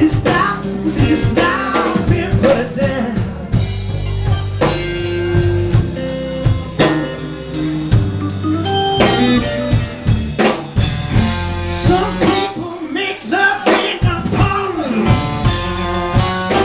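Live band playing: drum kit, electric bass and electric guitars, with steady drum hits under held guitar notes.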